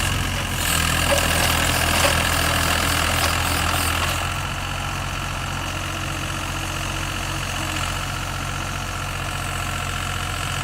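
Mini excavator's diesel engine running steadily at idle. It is louder, with added hiss and a few clicks, for the first few seconds, then settles about four seconds in to a quieter, even idle.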